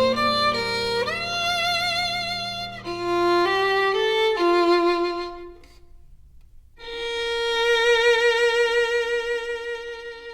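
Instrumental passage led by a violin: a slow melody with vibrato over soft sustained accompaniment that dies away about six seconds in. After a brief gap, a violin enters on one long held note with vibrato that slowly fades.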